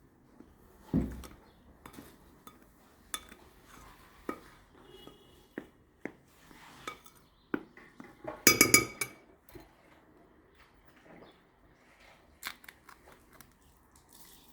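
Kitchen handling sounds of bowls and utensils while an egg is separated and its white added to flour: scattered light clicks and knocks, a dull thump about a second in, and a louder burst of ringing clinks a little past halfway.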